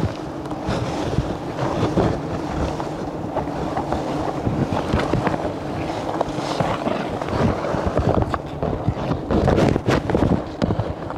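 A disturbed colony of wild honeybees buzzing in a dense, steady drone around their exposed comb, mixed with wind on the microphone. Rustling of brush and branches as someone pushes through comes on thicker about eight seconds in.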